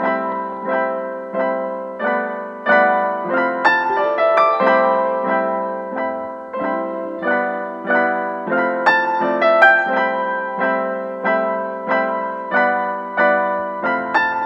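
Background piano music: a gentle melody of repeated notes, each struck and fading.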